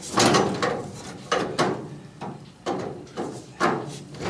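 Large pipe wrench working on a furnace's pipe fitting: a series of irregular metal clanks and scrapes as the wrench is set and turned.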